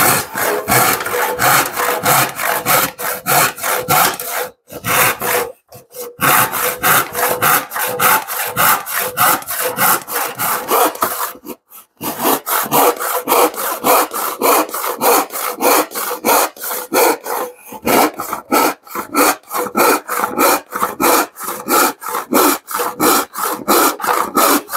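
An 8-point hand rip saw cutting along the grain of a pine board, with steady, even back-and-forth strokes and a few brief pauses.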